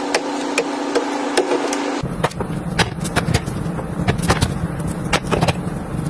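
Bottles and jars being set into plastic refrigerator door shelves: a quick run of light clicks and taps, several a second, over a steady hum.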